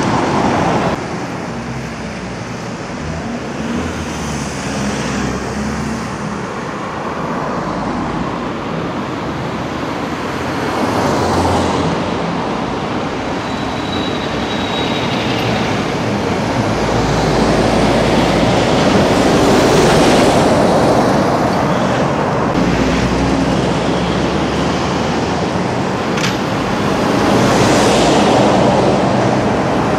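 Articulated lorries passing close by one after another, their diesel engines running and tyres rumbling on the road, over steady traffic noise. The sound swells as each lorry goes by, loudest in the second half.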